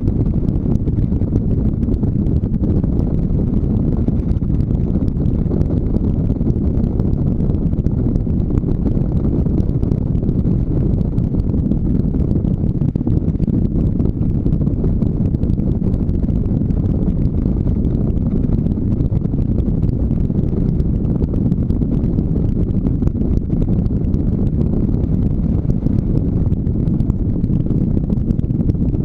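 Steady low rumble of wind buffeting a helmet-mounted camera's microphone on a moving motorcycle, with the motorcycle's engine running beneath it at an even pace.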